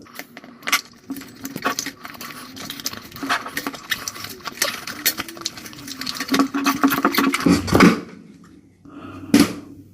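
Rubber inner tube being worked out of a half-removed 8.5-inch scooter tire: rubber rubbing and squeaking against the tire and rim, with a wavering squeal and many small clicks and scrapes of handling. Two louder knocks come near the end.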